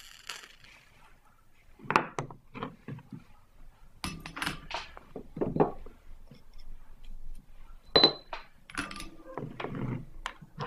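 Scattered knocks and clinks as a small zinc-framed stained-glass box and metal tools are handled and set down on a wooden workbench, with one sharp ringing clink late on.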